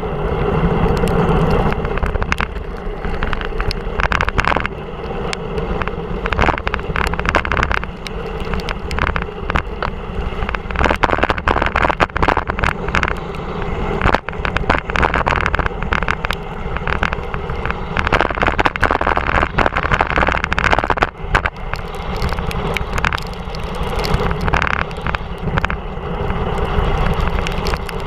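Wind rushing over a GoPro camera's microphone and tyres hissing on a wet road during a fast bicycle descent in rain, with frequent sharp clicks and knocks throughout.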